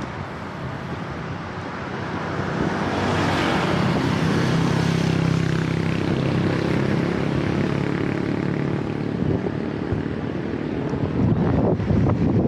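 A motor engine humming, swelling to a peak a few seconds in and then fading, with wind noise on the microphone.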